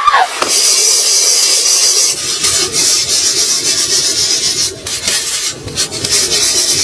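Wood being worked with a hand tool: a continuous rubbing, rasping scrape of a blade or rasp against wood.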